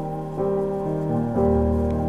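Calm instrumental background music of held notes that change every half second or so.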